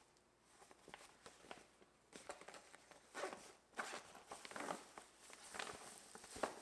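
A small cloth bag being unfolded and handled: fabric rustling in soft, irregular bursts that start about two seconds in, with a sharp click near the end.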